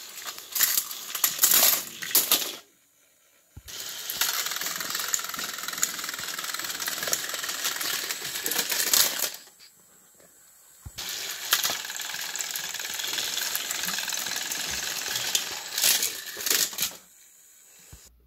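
Battery-powered Thomas & Friends toy train engines running: a steady whirring rattle of small motors and plastic gears, with choppier clattering at the start. The sound drops out twice for about a second.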